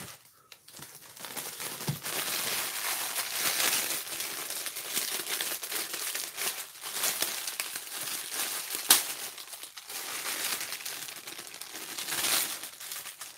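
Clear plastic packaging crinkling and rustling as it is handled, going on steadily for most of the stretch, with one sharp crackle about nine seconds in.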